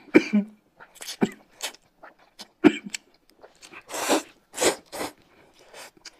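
Close-miked eating sounds: noodles slurped in several short, hissy pulls, mixed with biting and chewing.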